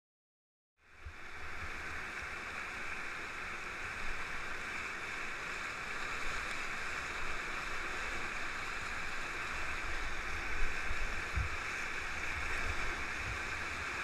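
Whitewater rapids rushing steadily around an open canoe, starting abruptly about a second in, with occasional low thumps and rumbles on the microphone.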